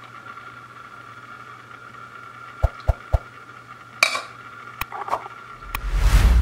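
A few sharp clicks and light clinks over a faint steady hum, then a short rushing noise with a low rumble near the end.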